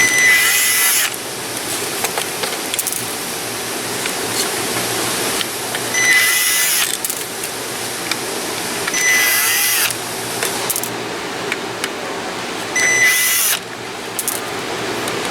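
Cordless power screwdriver running in four short bursts of about a second each, driving out screws while a console assembly is taken apart, over a steady background hiss.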